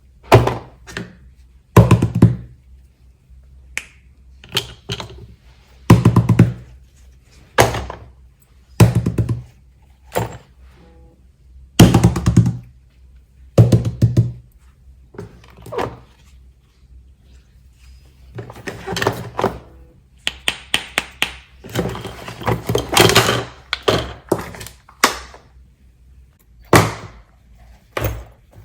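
Fidget toys being set down and handled one after another, each a dull thunk, with a run of quick clicks and taps near the end, over faint background music.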